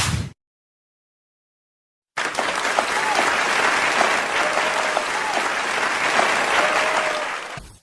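Crowd applauding and cheering, with a few whistles over the clapping; it starts abruptly about two seconds in and fades out near the end.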